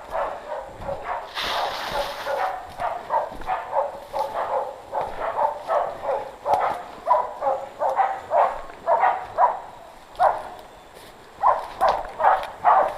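Pig-hunting dogs barking over and over, about two to three barks a second, bailing a wild pig, that is holding it at bay. The barking pauses briefly near the end, then starts again.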